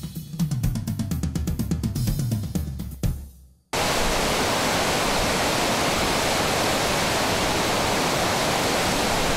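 Music with a drum beat fades out over the first three seconds or so. After a brief gap, loud rushing whitewater starts suddenly and runs on steadily: a river pouring over rocks and a weir.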